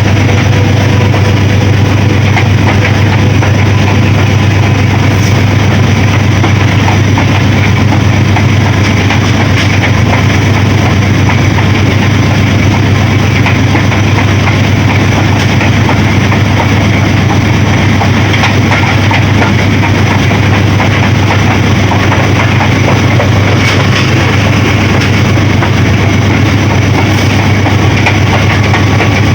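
Diesel locomotive of a moving passenger train running loud and steady: a strong low drone under a wide rattling rail noise, with a few short clicks.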